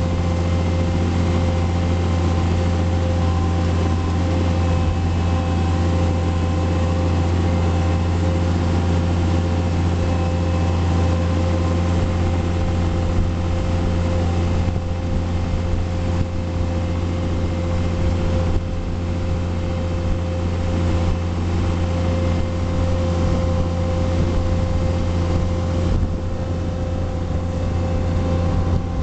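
John Deere 4700 self-propelled sprayer running steadily through the field: a deep, even diesel drone with a steady whine over it.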